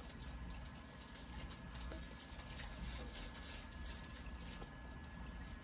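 A toddler eating strawberry pieces: faint mouth and chewing sounds and small scattered clicks of fingers on the plate, over a steady low hum.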